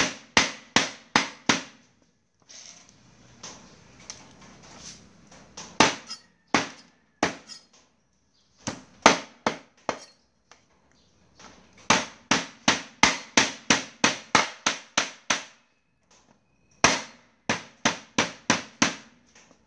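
Meat cleaver chopping through duck legs on a thick round wooden chopping block: sharp blows in quick runs of several strikes, about three a second, with short pauses between runs.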